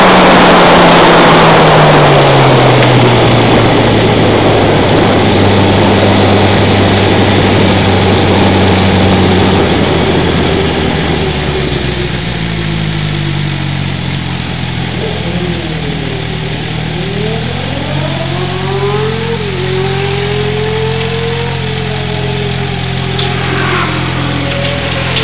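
Onboard sound of a track-day vehicle's engine as it slows. The engine note falls over the first few seconds as the wind noise dies away, then settles into a steady low running note. In the second half a higher whine rises and falls several times.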